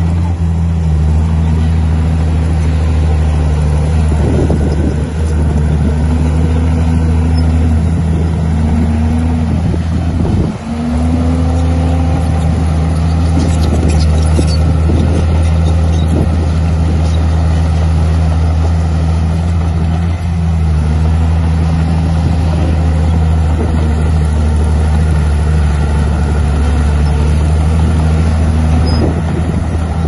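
Komatsu D51 bulldozer's diesel engine running under load as it pushes soil, its pitch sagging and recovering several times. There is a brief drop about ten seconds in.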